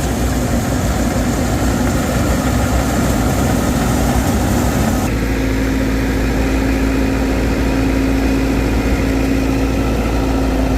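A harvesting machine's engine running steadily. About five seconds in, the sound changes abruptly to a smoother, even hum.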